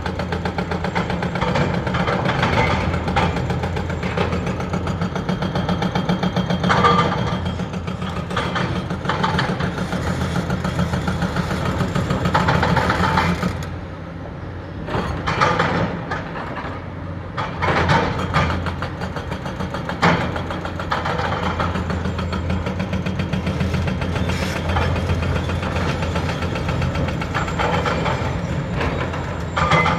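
Diesel engines of large Hitachi tracked excavators running steadily, with clattering knocks of rock being dug and broken by buckets and hydraulic breakers. The machinery eases off for a few seconds about halfway, then builds up again.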